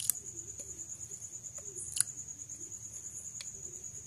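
A few sharp knocks as chopped onion and tomato pieces are dropped into a stainless steel pot of water, the loudest about two seconds in. A steady, high, finely pulsing trill continues underneath.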